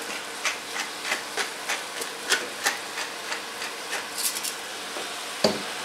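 Hand pepper mill being twisted over a frying pan, its grinding clicks coming evenly about three times a second, over the steady sizzle of ground chicken frying.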